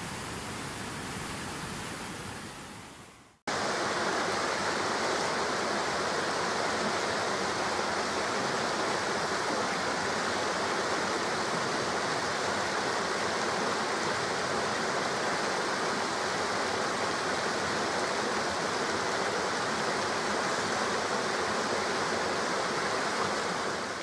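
Water rushing steadily. The first rush fades away over the first few seconds, and after a brief drop it cuts straight into the steady pour of a rocky stream's small cascades.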